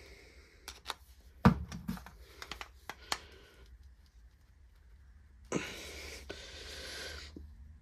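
Small metal clicks and knocks of a screwdriver and carburettor parts being handled as the screwdriver is set to the carburettor's main jet, the loudest knock about a second and a half in. A rustling hiss lasting nearly two seconds near the end.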